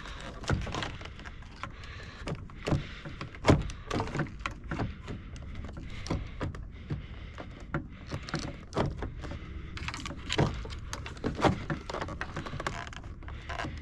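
Irregular clicks, taps and knocks of tools and parts being handled during work on a car door, the loudest knock about three and a half seconds in.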